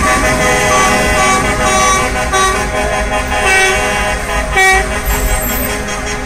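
Truck horns honking repeatedly, several steady tones at different pitches overlapping and breaking off, with one louder blast about four and a half seconds in. A low diesel engine rumble runs underneath.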